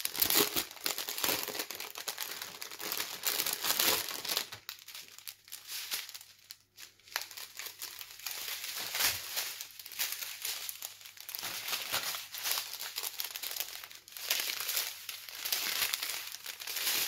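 Crinkling plastic packaging: bags of diamond-painting drills being handled and laid out, in irregular rustling strokes with a quieter stretch in the middle.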